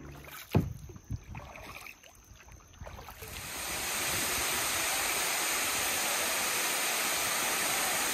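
A sharp knock and a few light splashes in the first three seconds. Then, from about three seconds in, the steady rush of a tall waterfall pouring into its plunge pool.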